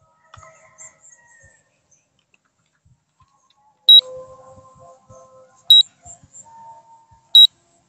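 Three short, loud, high-pitched electronic beeps, each a single steady tone, about 1.7 seconds apart, starting about four seconds in.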